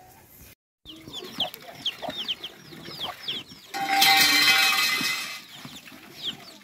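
Chickens calling, with many short falling peeps and clucks. A louder, harsh call that lasts about a second and a half comes a little past halfway.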